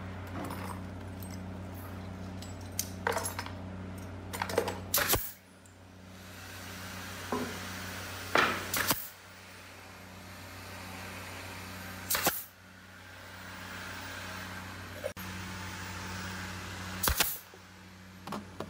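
Pneumatic nail gun firing into hardwood moulding: four loud sharp shots a few seconds apart, with a few lighter clicks between them, over a steady low hum.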